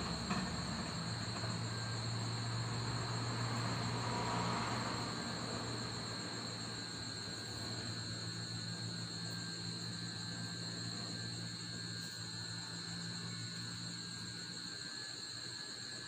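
Night chorus of crickets, a steady high trill throughout, over the faint rumble of distant passing traffic that swells in the first few seconds and then fades.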